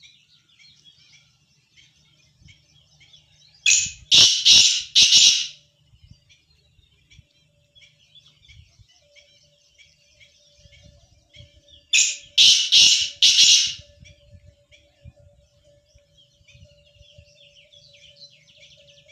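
Black francolin (kala teetar) calling twice: each call is a short harsh phrase of about four loud notes lasting under two seconds, the first about four seconds in and the second about twelve seconds in. Faint twittering of small birds goes on between the calls.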